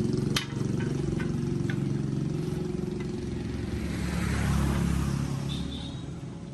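Restored D15 single-cylinder diesel engine running with a fast, even beat, getting quieter over the last second or so.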